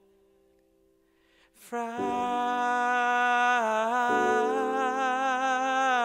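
A quiet lull of about a second and a half, then a breath and a man's voice comes in singing one long wordless held note with vibrato over steady lower notes.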